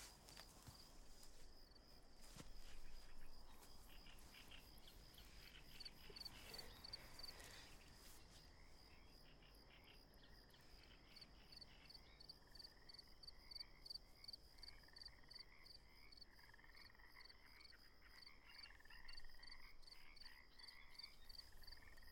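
Faint evening chorus of frogs calling and insects trilling: a steady, rapidly pulsing high trill throughout, joined about halfway through by repeated short rising frog calls.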